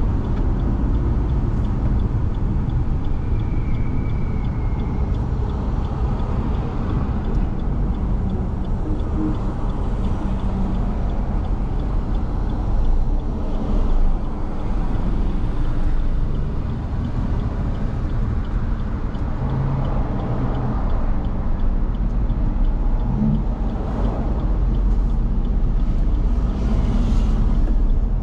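A car driving on a wet road in the rain, with a steady low rumble of road and engine noise.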